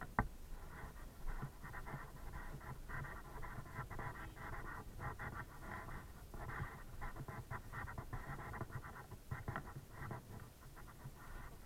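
Faint, continuous scratchy rustling and low rumble from a handheld camera's microphone as it is held and carried: handling noise, with a sharp click right at the start.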